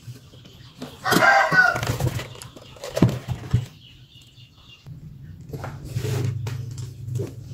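A short animal call lasting about a second, heard about a second in, then light clicks and knocks from hands working the wire leads of the amplifier's final transistors, over a steady low hum.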